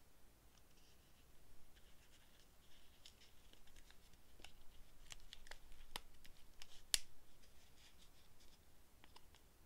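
A small leather-covered mini journal being handled and closed: faint paper rustling, then a run of light clicks and taps as the cover and its elastic loop are fastened, with one sharp click about seven seconds in.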